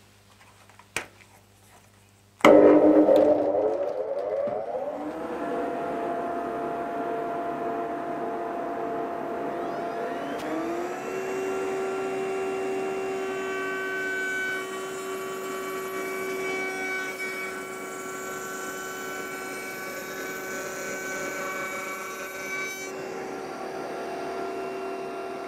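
A 2400 W AUK Tools router motor in a router table starts about two and a half seconds in, after a single click, and ramps up to speed, then runs steadily with a dust extractor while a small chamfer is routed along a piece of wood. A second rising whine joins about ten seconds in and settles into a steady tone.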